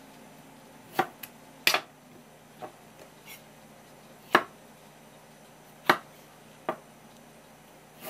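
Kitchen knife cutting a bamboo shoot on a wooden board: several sharp knocks at uneven intervals as the blade goes through and hits the wood.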